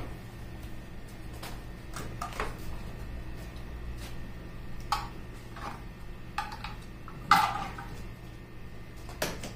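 Scattered light clicks and knocks of hand tools against plastic trim and a tail-light housing as the light is worked loose, over a steady low hum. The sharpest knock comes about seven seconds in.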